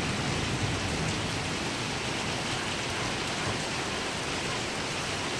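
Heavy rain falling in a steady downpour, an even hiss with no break.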